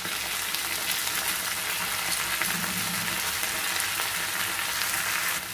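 Wet brinjal (eggplant) pieces, taken straight from salt water, sizzling in hot oil in a frying pan with onions and curry leaves. The sizzle is a steady hiss that eases off near the end.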